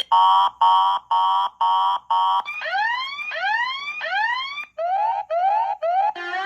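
Electronic alarm and siren sound effects played through a small 3-watt speaker, switching from track to track. About five short beeps come first, then three rising whoops, then quick short rising chirps, and near the end a steady tone sets in.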